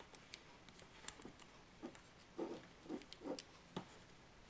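Faint clicks and light taps of small carburettor parts handled in the fingers as a gasket is slotted onto the top assembly of a Villiers S10 carburettor, with a few soft low bumps in the second half.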